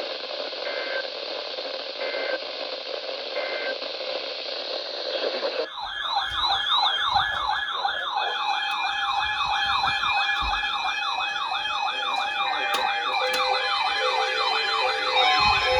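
Weather radio receiver static with three faint short beeps. About six seconds in it cuts to an electronic siren-style alert tone, warbling up and down a couple of times a second over steady electronic tones.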